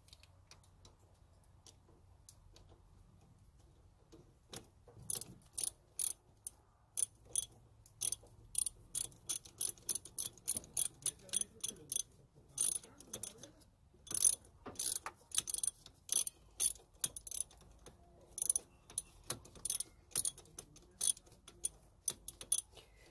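Hand ratchet wrench clicking as bolts are run down and tightened. Runs of quick clicks start about four seconds in and go on, with short pauses, almost to the end.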